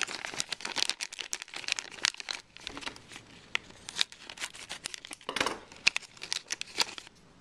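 Crinkling of a plastic blind-bag wrapper and its folded paper insert being handled, a run of small, sharp crackles that grows a little busier about five and a half seconds in.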